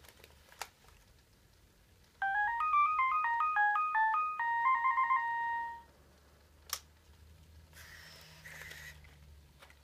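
Sony AIBO ERS-210 robot dog playing a short electronic melody of quick stepped beeps from its speaker, about two seconds in, ending on a held tone. A click follows, then a soft whir of its servos as it shifts its legs near the end.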